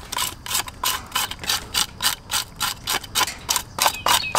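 Handheld metal fish scaler raked in quick, even strokes along a large fish's scales, about three rasping scrapes a second, flicking the scales off.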